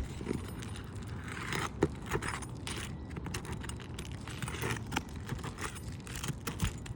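Metal pry tool scraping and clicking under asphalt roof shingles as a damaged shingle's nails are worked loose, in short irregular scrapes with a couple of sharp clicks.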